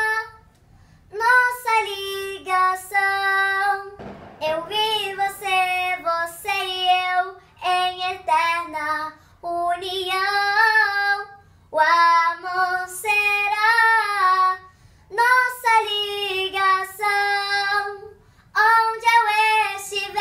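A young girl singing unaccompanied in Portuguese, in short held phrases with brief pauses between them.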